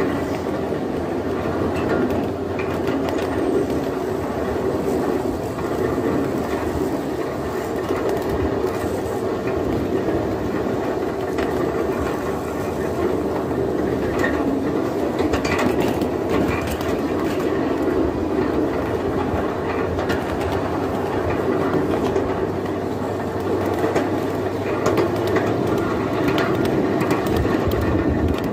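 Ridable miniature railway train rolling along its track: a steady rumble of wheels on the rails with scattered clicks.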